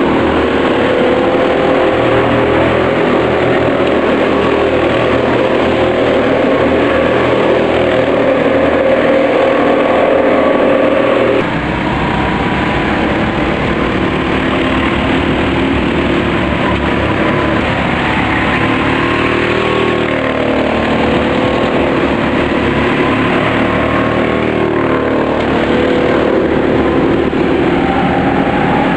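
Several racing kart engines running at race speed, their pitches rising and falling as the karts accelerate and lift off through the corners. The sound changes abruptly about eleven seconds in.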